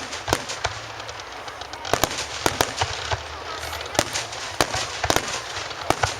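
Fireworks display going off: sharp bangs and pops at irregular intervals over a steady crackling hiss, with quicker clusters of reports about two seconds in and again near the end.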